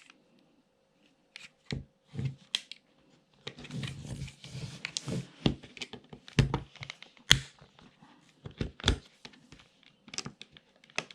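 Small flathead screwdriver prying at a cordless phone handset's plastic casing: irregular clicks, snaps and knocks of plastic, with a stretch of scraping about four seconds in.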